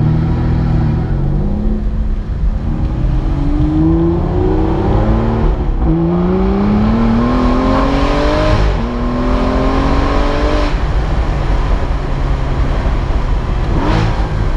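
Aston Martin V12 Vantage S Roadster's 6.0-litre V12 accelerating hard through the gears. Its pitch climbs in pulls, broken by upshifts about six, nine and eleven seconds in, then settles to a steadier, lower note.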